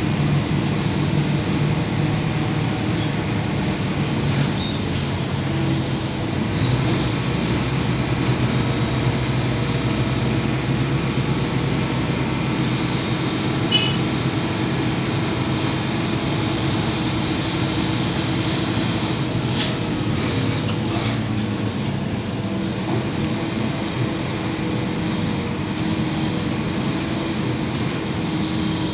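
Mercedes-Benz OC500LE diesel bus heard from inside the cabin while under way: a steady engine drone with road noise, the engine note shifting about six seconds in. A couple of short clicks or rattles come from the cabin, about halfway through and again a few seconds later.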